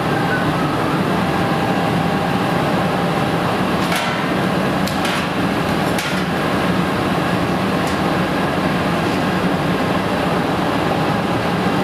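Steady loud running noise of industrial machinery, a waste extraction and shredding unit beside a die cutter. A few sharp metallic knocks come through the middle as its duct is handled.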